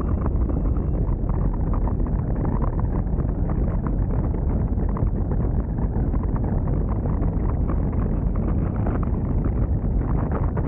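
Airflow buffeting the microphone of a camera mounted on a hang glider in flight: a steady, rumbling wind rush with no letup.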